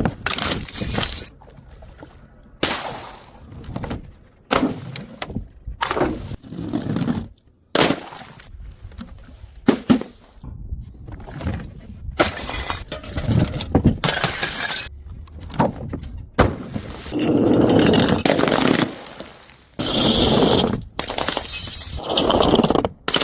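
Glass bottles and jars smashing one after another, each a sudden crash of breaking glass followed by crunching and tinkling shards, with short gaps between them and a few longer drawn-out breaks near the end.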